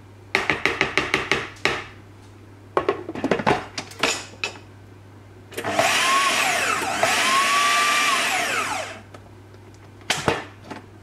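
Plastic spatula scraping the sides of a food processor bowl in quick strokes, then clattering as the lid goes back on. The food processor's motor then runs for about three seconds to blend date muffin batter, slowing and picking up again midway before it stops.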